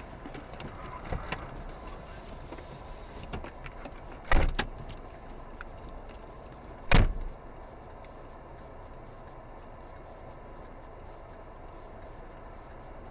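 Steady car engine and road noise heard inside a car, broken by two loud thumps about two and a half seconds apart.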